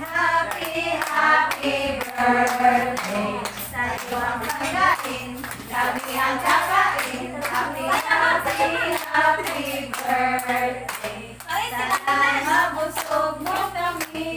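A group of voices singing together with hands clapping along.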